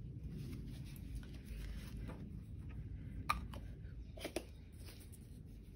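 Low steady background rumble of a small room, with two faint sharp clicks about a second apart near the middle.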